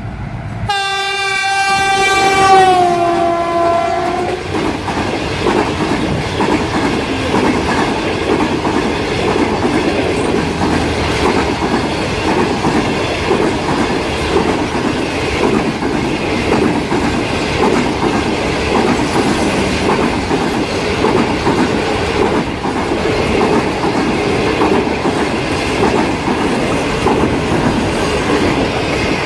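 GEU 9010 diesel-electric locomotive sounds its horn about a second in: one long blast that drops in pitch as the locomotive goes by. After that, the long rake of passenger coaches rolls past with a steady rumble and clickety-clack of wheels on the rails.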